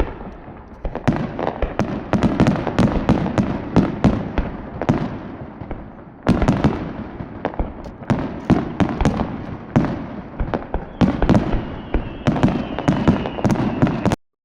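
Dense barrage of aerial firework shells bursting, many sharp reports in quick succession over a continuous rumble, with a faint whistle near the end. The sound cuts off suddenly just before the end.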